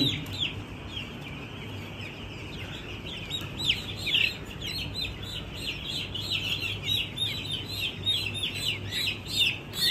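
A flock of week-old broiler chicks peeping: many short, high calls that fall in pitch, sparse at first and then coming thickly, several a second, from about three seconds in. A low steady hum runs underneath.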